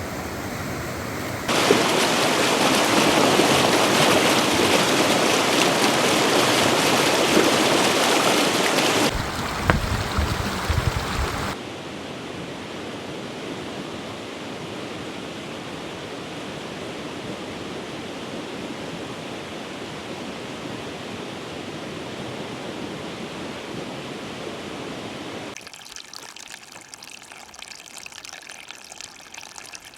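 Running water of a stream, a steady rushing hiss heard in several cut-together shots. It is loudest in the first several seconds, with a short low rumble about ten seconds in, and quieter near the end.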